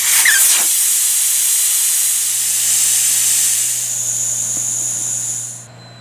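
Air hissing out through the valve stem of an SUV tire as the tire is let down toward zero pressure. The loud hiss eases slightly and cuts off suddenly near the end.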